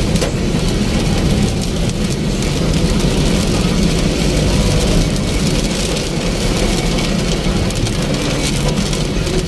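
Heavy typhoon rain pattering on a car's roof and windshield, over the steady low rumble of the car driving on a flooded road, heard from inside the cabin.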